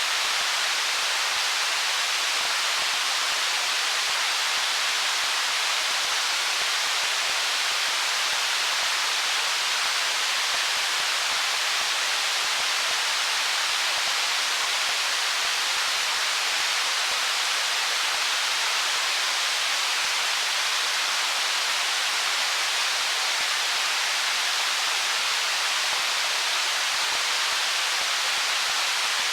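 Stream water flowing over stones: a steady, even rushing hiss, high and bright, with almost no low rumble.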